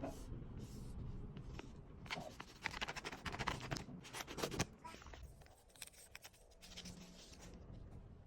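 Handmade paper blind bag being handled and opened: paper crinkling and rustling, with a dense run of crackles in the middle.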